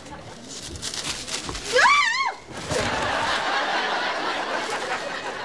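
A person's short, loud cry with a wavering pitch about two seconds in, then a sitcom studio audience laughing steadily.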